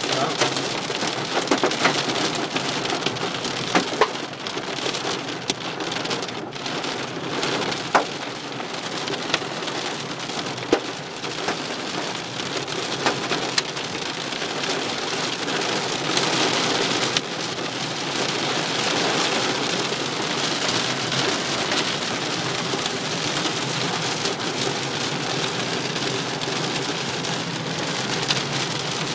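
Hail and heavy rain drumming on a car's roof and windscreen, heard from inside the cabin, as a dense steady patter. Sharper single cracks of larger hailstones hit now and then, mostly in the first half.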